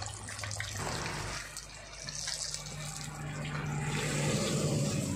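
Hot oil sizzling and bubbling around a whole tilapia deep-frying in a wok, over a steady low hum. The sizzle grows louder near the end as the fish is turned in the oil.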